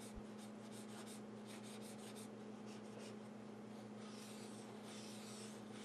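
Faint, soft scratching and rubbing strokes, irregularly spaced, over a steady low hum.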